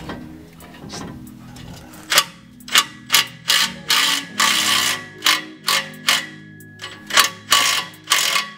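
Hand socket ratchet clicking on the exhaust flange bolts under a turbo-diesel 4WD, in quick back-and-forth strokes about two a second, starting about two seconds in.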